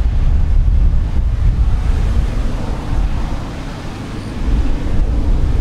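Wind buffeting the microphone, a loud, unsteady low rumble, over the steady roar of a Boeing 787-8's Rolls-Royce Trent 1000 jet engines as the airliner rolls along the runway.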